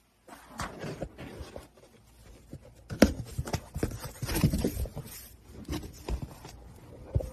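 Cardboard box rustling and knocking as a hand works at its flaps with a cat inside, with a sharp knock about three seconds in and a busier stretch of rustling shortly after.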